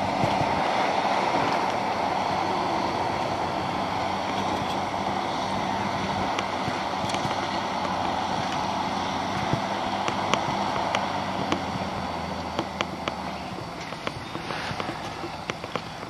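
John Deere 6910 tractor engine running steadily under load while working the field, growing fainter over the last few seconds as the tractor pulls away. A string of sharp clicks comes in over the second half.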